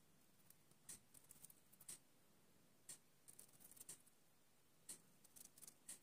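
Red canary picking at daikon radish leaves: faint, irregular little clicks and nibbling. A sharper tick comes evenly about once a second throughout.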